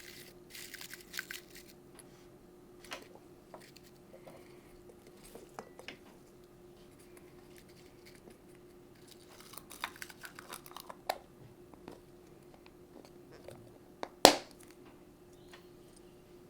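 Dry, papery crackling and rustling of dried everlasting daisies (strawflowers) being handled and packed into a clear plastic fillable bauble, in a few short bursts. A single sharp click about fourteen seconds in is the loudest sound, over a faint steady hum.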